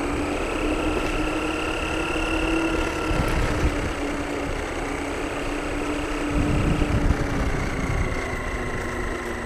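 Radio-controlled model car's motor running with a steady whine that drifts slightly up and down in pitch, over a rough low rumble that grows louder for about a second around two thirds of the way through.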